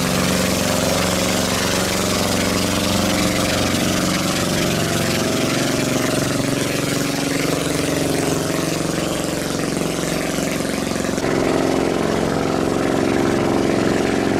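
Small boat engine running steadily over splashing water from the hull, its note shifting about eleven seconds in.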